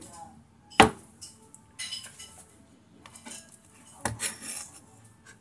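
Chinese cleaver cutting through luncheon meat and knocking onto a plastic cutting board: one sharp knock about a second in, followed by lighter scraping and handling noises near the middle and end.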